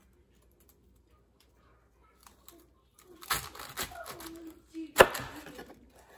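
Chef's knife cutting through a small savoy cabbage head on a wooden cutting board: a crisp crunching cut starting about three seconds in, then a sharp knock of the blade on the board about five seconds in, the loudest sound.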